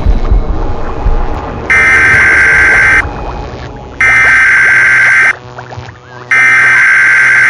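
A loud buzzing alarm tone sounds three times, each blast held steady for over a second with about a second between them, after a low rumble at the start.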